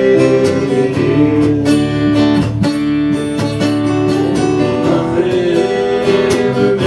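Acoustic guitar strummed in a steady rhythm between sung lines of a folk song.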